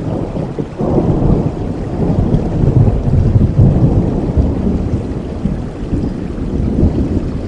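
Rolling thunder over steady rain: a low rumble swells about a second in, is loudest in the middle and slowly dies away.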